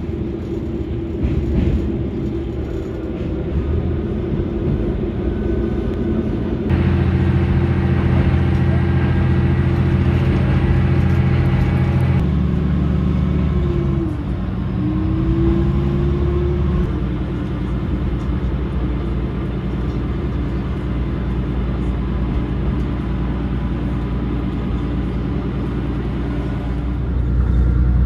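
Diesel railcar's engine running steadily under way, with the low hum of the train in motion; the engine note grows louder about seven seconds in and eases back a few seconds later.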